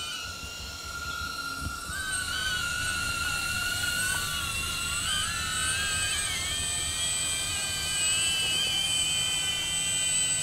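Propellers and electric motors of a DJI Avata FPV drone whining in flight, the pitch wavering up and down as the throttle changes. It gets louder about two seconds in.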